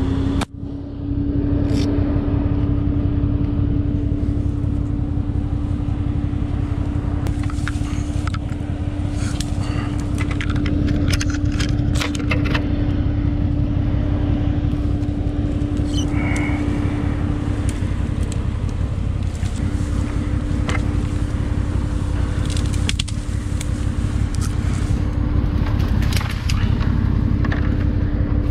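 Can-Am Maverick Sport side-by-side's engine running steadily, a low rumble with a constant whine over it. Sharp crackles and snaps of branches come and go as brush is handled.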